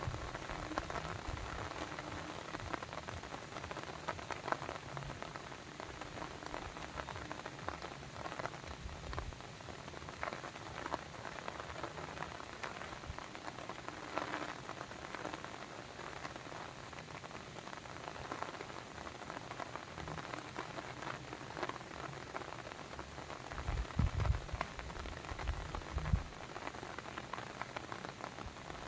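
Steady patter and splash of water, a dense even hiss full of fine drop-like ticks, with a few low thumps late on.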